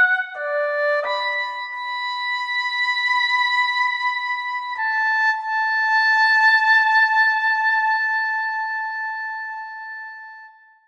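Infinite Woodwinds virtual oboe, shaped with dynamic EQ and a reverb send, playing a slow phrase: two short notes, then a long held note and a final long note a step lower that fades away near the end.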